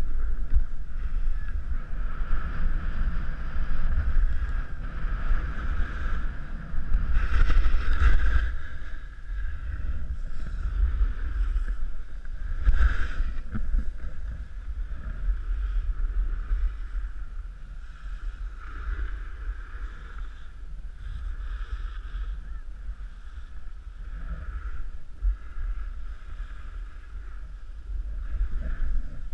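Wind rushing over the microphone of a skier's body-worn camera during a downhill run, with a steady hiss of skis sliding on packed snow. It swells louder around seven to eight seconds in and again briefly near thirteen seconds.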